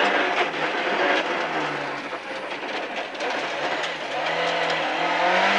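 Rally car's Ford Pinto four-cylinder engine, heard from inside the cabin, dropping its revs through a slow square left-hander and then building revs again as the car accelerates out, over a steady rush of road and gravel noise.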